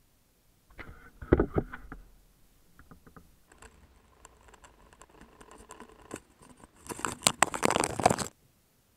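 Footsteps crunching through fresh snow. There are a few loud steps about a second in, softer steps through the middle, and a quick run of loud crunches near the end that stops abruptly.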